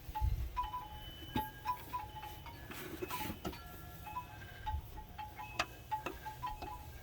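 Scattered light metallic pings and chime-like ringing tones at a few different pitches, with several sharp clicks in between.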